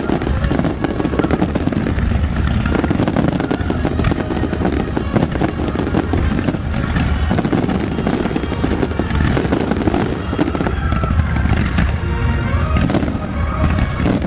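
Large fireworks display in a continuous barrage: many shells bursting at once, a dense run of overlapping bangs and crackling with no gap.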